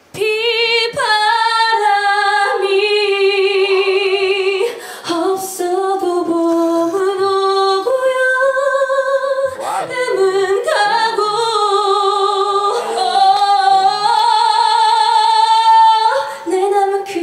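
A woman singing a Korean ballad into a microphone with no accompaniment heard, holding long notes with vibrato and brief breaths between phrases.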